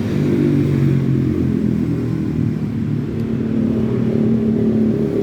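An engine running steadily with a low, loud hum.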